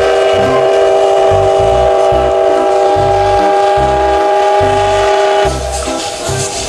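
A train whistle blowing one long, steady chord of several tones that cuts off about five and a half seconds in, over a low rhythmic pulse.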